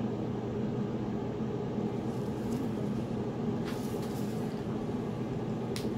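Steady mechanical hum from running room equipment, with a couple of faint short clicks.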